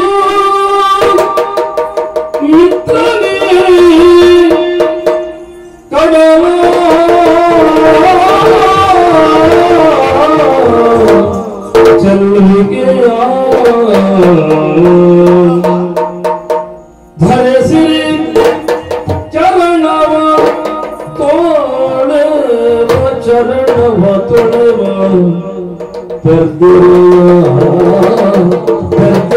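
Yakshagana music: a male Bhagavata singing a verse over maddale hand-drum strokes, in phrases broken by short pauses.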